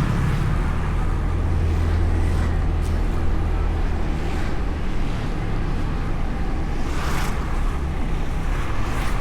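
Honda Beat scooter riding along with its engine running steadily, heard through a bike-mounted action camera with wind rushing over the microphone and road noise. The low engine hum eases a little about halfway through.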